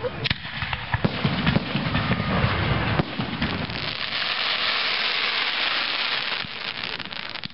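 Aerial fireworks going off: rapid pops and bangs with low booms in the first few seconds, then a dense hissing crackle that runs for about three seconds before it fades.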